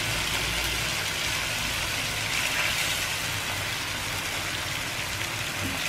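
Minced shallots and garlic sizzling steadily in hot oil and fish sauce in a nonstick frying pan.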